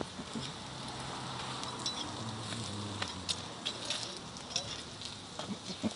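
Parathas frying in oil on a large flat iron griddle (tawa): a steady soft sizzle, with scattered sharp clinks of a metal spatula and tongs on the pan as the breads are lifted and turned.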